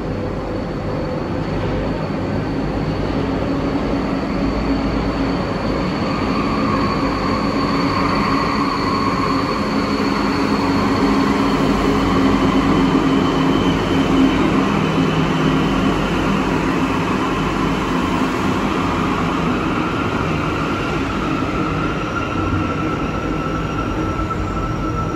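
Cabin noise inside an Alstom NS-16 rubber-tyred metro train running between stations: a steady rolling rumble with the whine of the traction motors, whose tones drift slowly in pitch.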